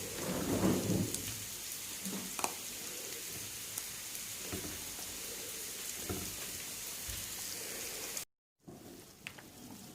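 Koshari tomato sauce sizzling and bubbling in the pan: a steady fine crackle with scattered pops and a brief stir near the start. It cuts off suddenly near the end, then comes back fainter.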